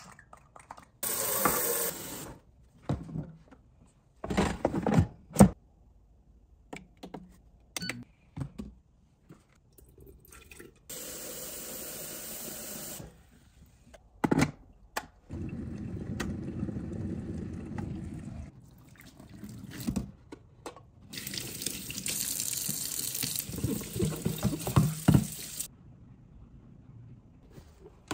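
Kitchen tap running into a stainless-steel sink in three separate bursts while an air fryer basket is washed, with sharp knocks and clunks of the basket and other kitchenware being handled in between.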